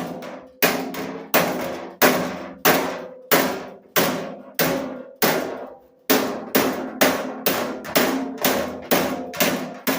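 Hammer blows on the steel lid of a late-1960s Craftsman carpenter's toolbox, backed by a cross-peen sledge held against the lid as a dolly, to knock out a dent. About eighteen sharp metallic strikes, each ringing briefly, coming faster after about six seconds.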